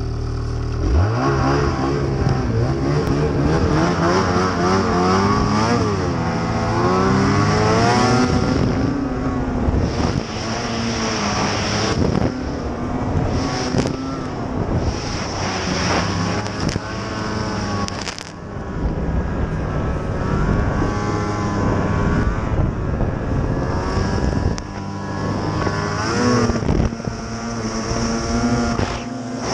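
Ski-Doo snowmobile engine revving hard and repeatedly, its pitch climbing and dropping as the throttle opens and closes while riding through snow.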